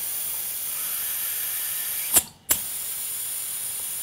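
Butane gas hissing steadily as it is transferred from an upside-down refill canister into a handheld butane soldering torch's handle, the tank still filling. A little over two seconds in, the hiss cuts out for a moment, with a click at each end.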